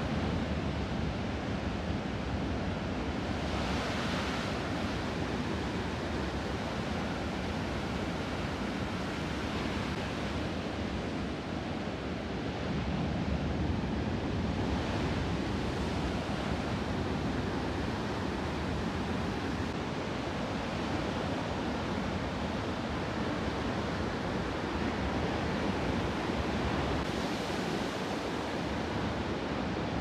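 Ocean surf: a steady rush of waves breaking and washing ashore, with a few louder hissing swells as single waves break.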